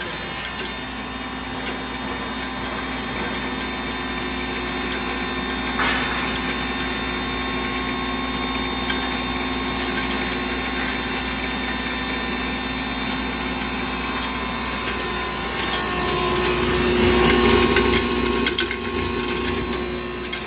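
Double-chamber singhara (water chestnut) flour grinding machine running: a steady mechanical hum with many small clicks from the grinding, louder for a few seconds near the end.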